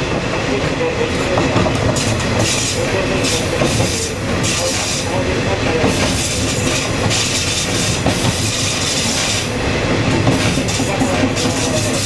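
Former JNR KiHa 20-series diesel railcar KiHa 205 heard from on board while running: a steady rumble of its DMH17 diesel engine and wheels on the rails, with rail-joint clatter. A harsher high hiss from the wheels swells and fades several times as it rounds the curves.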